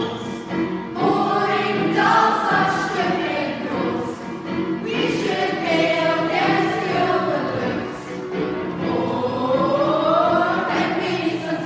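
Music with a group of voices singing together, with a long rising phrase about three-quarters of the way through.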